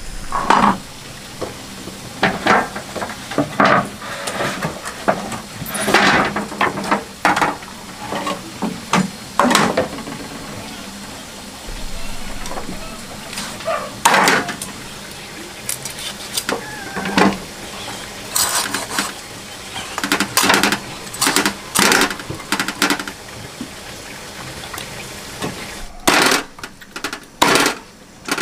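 A cleaver chopping a boiled whole chicken on a wooden chopping block: a series of sharp knocks with gaps between them, coming faster and harder near the end.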